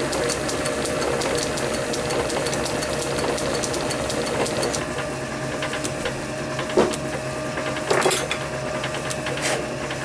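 Metal lathe running with a small cutter in its spindle, milling a slot in a brass workpiece: a steady machine hum with fine rapid ticking from the cut. Two sharper knocks come about seven and eight seconds in.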